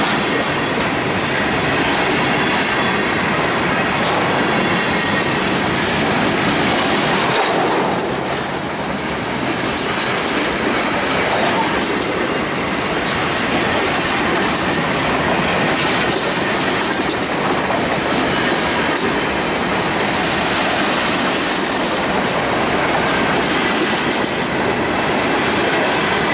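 Freight cars rolling past close by: a steady, loud rumble and clatter of steel wheels on the rails.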